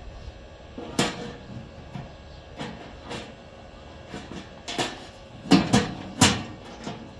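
Irregular metal knocks and clanks, about eight sharp hits at uneven spacing, with the loudest three close together near the end.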